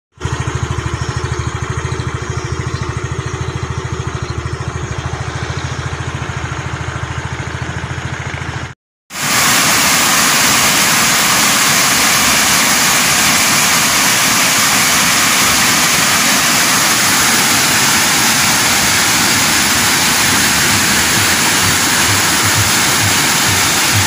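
For the first nine seconds, an engine runs with a low, fast, even pulse. After a sudden cut, water rushes steadily over a shallow cascade of sloping rock, and this is the louder sound.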